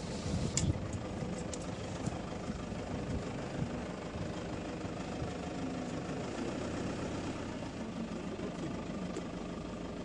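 A heavy engine running steadily at idle.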